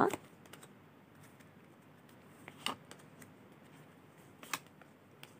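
A tarot deck being shuffled by hand: a few sharp card clicks and snaps over a quiet background, the loudest just before three seconds in and at about four and a half seconds in.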